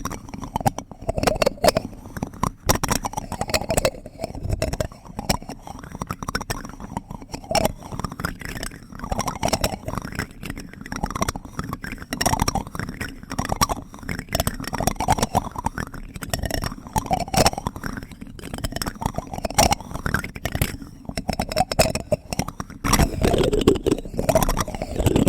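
Plastic spoon worked right against a sensitive microphone, making a dense run of close clicks and scrapes, busier and louder near the end.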